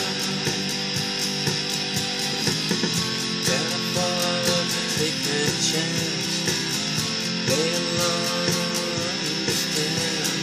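Cream Stratocaster-style electric guitar strummed in a steady, even rhythm, with a few sliding notes, playing an instrumental passage between sung lines.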